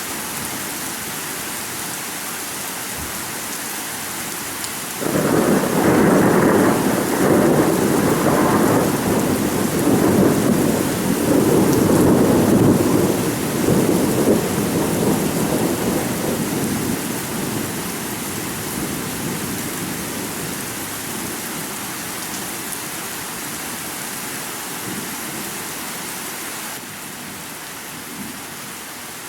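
Thunderstorm: steady rain hissing, with a long roll of thunder that breaks suddenly about five seconds in, rumbles for around ten seconds and then slowly fades back under the rain.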